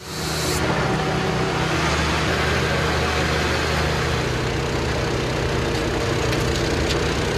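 An engine running steadily with an even low hum, under a general hiss of activity at a rescue site.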